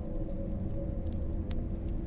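A crackling fire burning over a steady low rumble, with one sharp crackle about one and a half seconds in.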